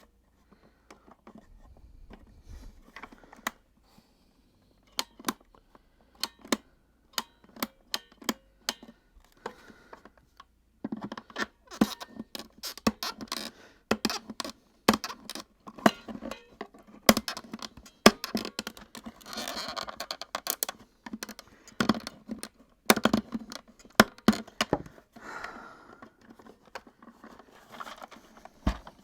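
Clicks, taps and scraping of plastic parts and tools as a Miele vacuum cleaner's housing is worked on during dismantling: separate sharp clicks at first, then denser rattling and scraping from about a third of the way in.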